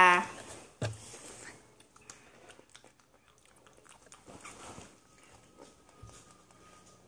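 A child faintly chewing a jelly bean, with small scattered mouth clicks and rustles, and a single knock a little under a second in.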